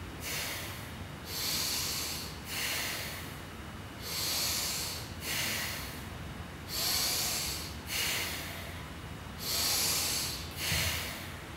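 A man's loud, deliberate yogic breathing: slow inhales and exhales of about a second each, one after another with no hold between, about five in-out cycles. It is a pranayama round of counted breaths.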